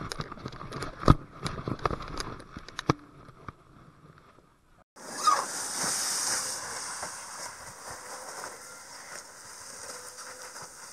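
Plastic kayak and its paddle knocking and scraping on a wet plastic tarp, a run of sharp knocks over the first few seconds. After a short silent break, a steady hiss with faint ticking as the kayak slides down the tarp.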